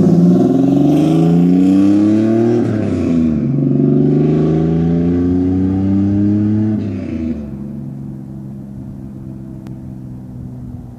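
Cammed 1997 Chevrolet Camaro RS with catless exhaust into a Flowmaster 40 muffler, accelerating away: the engine note climbs, drops with an upshift about 3 s in, climbs again and shifts once more near 7 s, then fades as the car pulls off into the distance.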